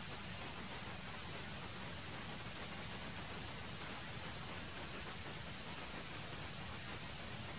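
A steady, high-pitched insect drone, one unbroken note, over an even background hiss.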